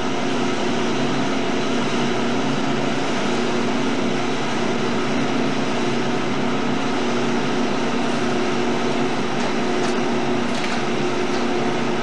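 Biro meat band saw running steadily, its motor and blade giving an even hum, while beef is fed through it.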